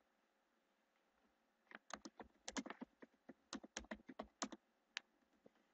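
Typing on a computer keyboard: a quick run of keystrokes starting a little under two seconds in and lasting about three seconds, then one last keystroke about a second later.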